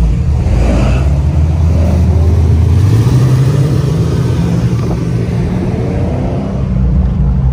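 Car engine running loudly at low speed in slow cruise traffic, a deep steady sound. The tone shifts slightly about three seconds in.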